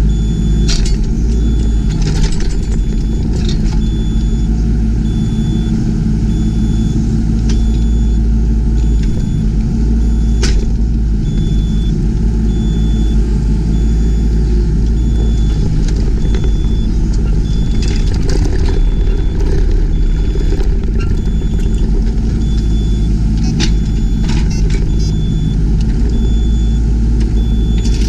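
Yanmar ViO20 mini excavator's diesel engine running steadily, with a few sharp knocks now and then and a faint high beep repeating on and off.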